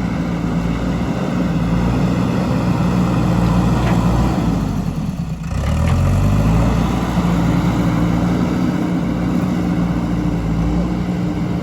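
JCB 3DX backhoe loader's diesel engine running steadily under working load. About five seconds in, its note dips briefly, then rises again as it revs back up.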